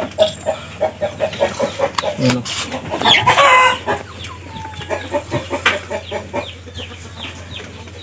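Chickens clucking in quick repeated runs, with one longer call about three seconds in.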